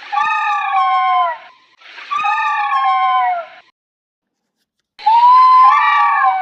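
Baby spinosaurus sound-effect calls: three high, whining cries, each about a second and a half long and sliding down in pitch, with short pauses between them. The third begins about five seconds in.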